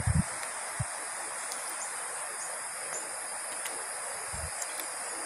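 Steady outdoor background hiss with a thin, high, even drone, and a couple of soft low thumps at the start and about four and a half seconds in.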